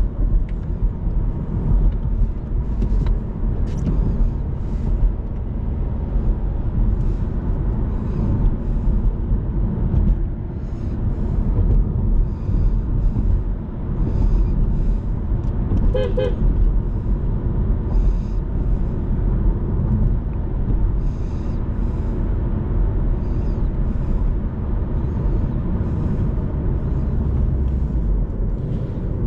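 Inside the cabin of a 2007 Audi A3 Sportback: the 1.6 FSI four-cylinder engine running and tyres rumbling over a rough, patched road. A brief toot sounds about halfway through.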